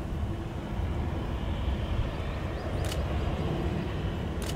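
Distant Boeing 747-400 taxiing, its jet engines giving a steady low rumble. Two sharp clicks, about three seconds in and near the end.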